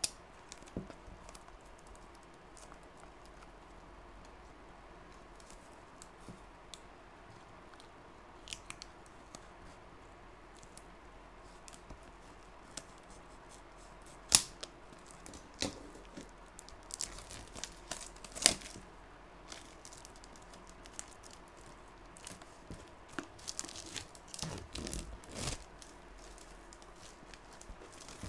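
A utility knife slitting the sealed edges of a small cardboard box, with scattered sharp clicks and scrapes, the loudest a little past halfway. Near the end, plastic packaging crinkles as the contents are pulled out.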